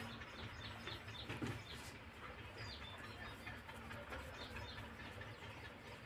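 Faint bird calls: scattered short, high chirps, with one louder, lower call about one and a half seconds in, over a low steady hum.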